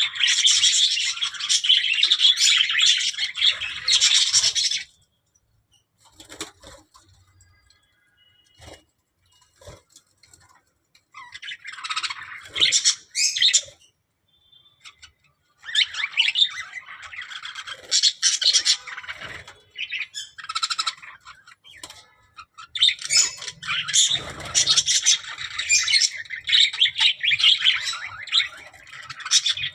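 Budgerigars warbling and chattering in fast, high chirps and squawks. The chatter comes in bursts of several seconds, with a quiet stretch of several seconds after the first burst.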